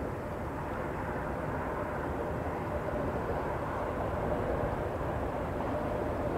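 Distant freight train rolling across a steel bridge: a steady low rumble with a faint hum in it, slowly growing a little louder.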